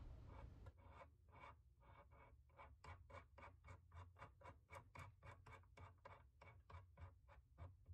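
Faint, quick ticking at about four clicks a second as fingers twist the keyed chuck of a mini drill press, closing its jaws on a tiny PC-board drill bit. The ticking stops near the end.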